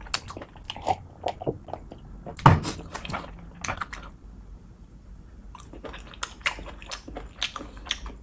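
Close-miked chewing and biting, with wet mouth smacks and clicks, from someone eating a mushroom dish. About two and a half seconds in comes one louder, deeper thump. The sounds grow sparser in the second half.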